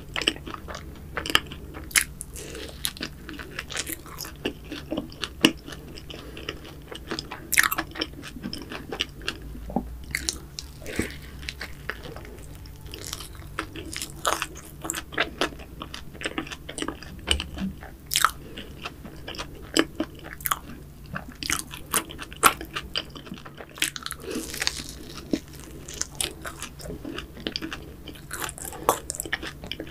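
Close-miked eating of a cream-topped pastry: irregular crisp crunches with chewing in between.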